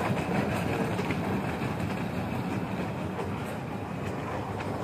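Miniature kiddie train rolling along its narrow steel track, a steady rumble of wheels on rails.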